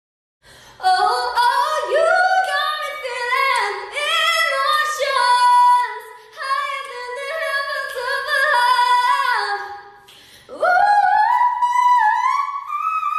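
A woman singing a melody in a high voice, ending with a long swoop up to a held high note.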